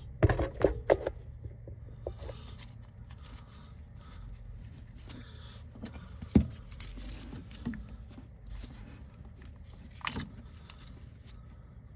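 Metal clinks and light scraping from handling brake caliper parts with gloved hands: a quick run of clicks in the first second, then scattered small ticks, with sharper single clicks about halfway through and again near the end.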